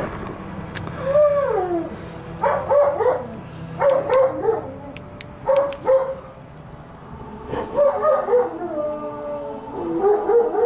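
A dog howling and whining in about six drawn-out calls that waver and slide in pitch, with a few sharp clicks between them.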